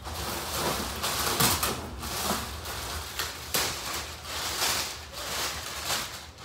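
Plastic packing wrap rustling and crinkling as it is pulled out of a cardboard box, with a few sharper crackles.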